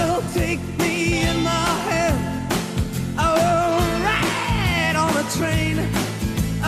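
Rock song playing as background music: regular drum beats under a wavering lead melody.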